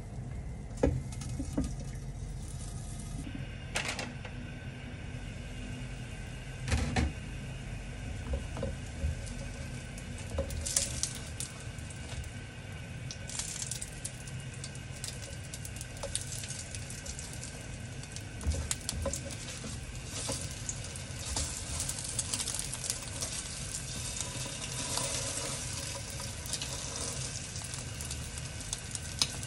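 Egg-dipped bread slices sizzling in hot oil in a wok, with occasional knocks and scrapes of a spatula against the pan as the slices are turned. The sizzle gets louder and brighter about halfway through.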